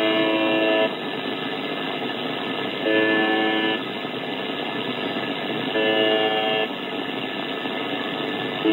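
UVB-76 "The Buzzer" on 4625 kHz, heard over a shortwave receiver: a buzzing tone just under a second long repeats about every three seconds, three times, over steady shortwave static.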